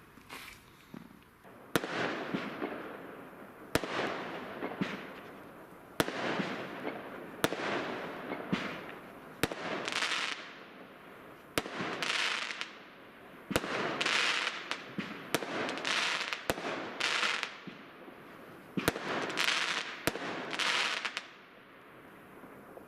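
MADISON shot tube firework firing a rapid string of about a dozen shots, roughly one every second or two, each a sharp crack followed by a hissing burst.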